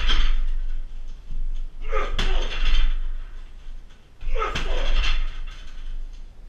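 Right shin kicks landing on a 60 kg heavy bag: two hard smacks about two seconds apart, each followed by about a second of noise as the bag swings and shakes on its stand.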